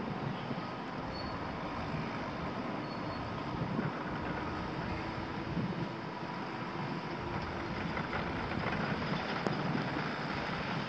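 Steady diesel engine noise from earthmoving machines: a Volvo tracked excavator running and a farm tractor pulling a dump trailer across the site.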